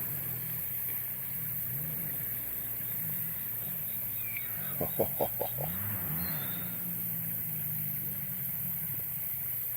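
Distant four-wheeler (ATV) engines running, their pitch slowly rising and falling as they rev. About five seconds in, a quick run of four or five short clucking notes.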